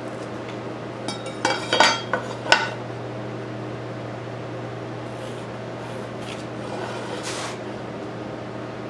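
Metal speed square clinking and knocking against a pine board several times about a second in as it is moved and set in place. Near the end comes a fainter scratching of a pencil drawing a line along it.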